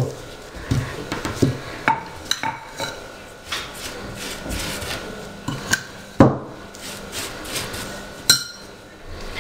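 Wooden rolling pin rubbing over a round of yeast dough, then light wooden knocks and clinks as the pin is laid down and a spoon takes sugar filling from a china cup; the sharpest knock comes about six seconds in.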